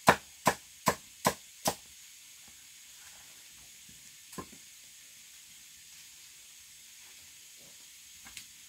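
Chopping with a blade: five quick, sharp strokes about 0.4 s apart in the first two seconds. After that a faint steady hiss remains, with one light knock about halfway through.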